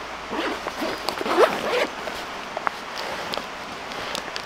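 Zip of a nylon EDC pouch pulled open in several quick strokes over the first two seconds, followed by light ticks and rustles as the pouch is opened out.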